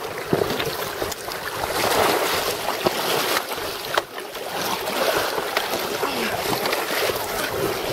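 Choppy lake waves washing against a rocky shore in strong wind, with wind buffeting the microphone and a few light clicks and knocks.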